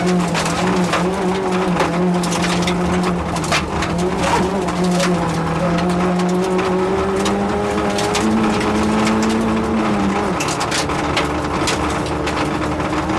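Yugo rally car's engine pulling hard under load, heard from inside the cabin: its pitch climbs slowly, then drops away about ten seconds in. Frequent sharp clicks of gravel strike the car's body.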